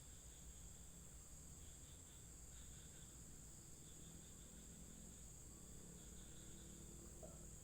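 Faint, steady chorus of crickets or other insects: a continuous high trill with scattered softer chirps, over a low background rumble.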